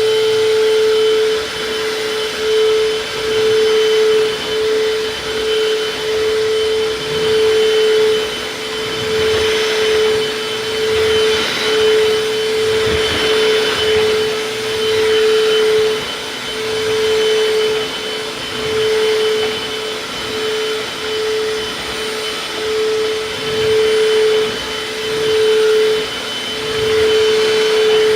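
Eureka Superlight vacuum cleaner running on a rug: a steady motor whine over airflow noise, its loudness rising and falling every second or two.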